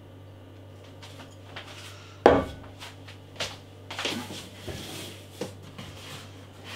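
Glass beer bottles knocking and clinking as they are handled and set down on a table: one firm knock about two seconds in, then several lighter clinks and taps. A short rustle near the end.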